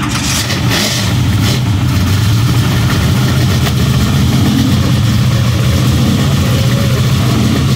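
Classic car engines idling in a line, a steady low rumble, with a couple of brief clatters in the first second or so.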